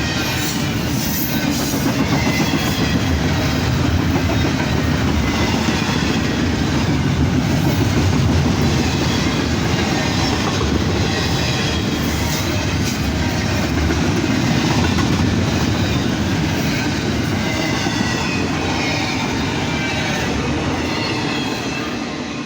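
Norfolk Southern freight train cars rolling past, wheels clacking over the rail joints, with faint high squealing from the wheels now and then. The sound fades near the end.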